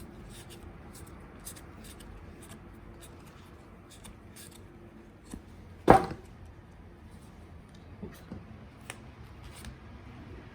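Playing cards and their box being handled on a table: scattered light clicks and taps, with one sharp knock about six seconds in.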